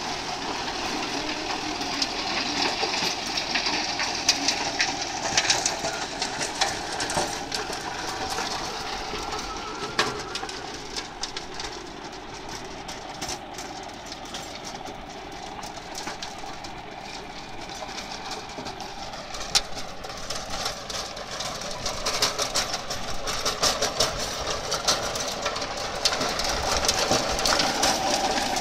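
Mahindra Arjun Novo 605 DI tractor's diesel engine running steadily under load while its rotary tiller churns dry soil, with a constant rattle and many small ticks; louder near the end.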